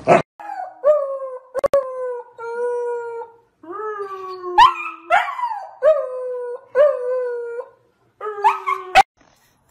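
Husky puppy howling: a string of drawn-out, wavering howls that rise and fall in pitch, with short breaks between them and a few brief sharp clicks.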